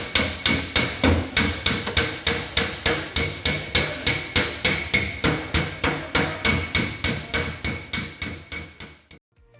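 Panel-beating hammer tapping out dents in the sheet-metal body panel of a damaged Fiat Doblo. The blows come steadily, about four a second, each with a ringing metallic tone. They stop about nine seconds in.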